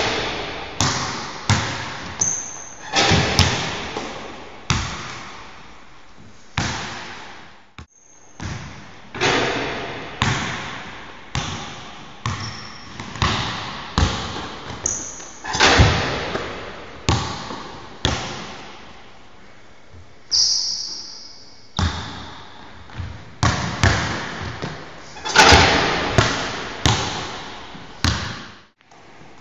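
A basketball bouncing hard on a wooden court floor in a large echoing hall, in irregular runs of dribbles with each bounce ringing out, and a few short high squeaks of shoes on the floor.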